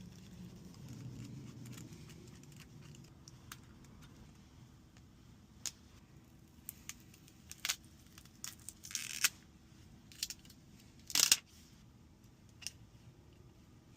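Small, sharp clicks and taps of hand tools and phone parts during an iPhone 13 Pro battery replacement, scattered and irregular, with two short scraping or tearing sounds about nine and eleven seconds in, the second the loudest.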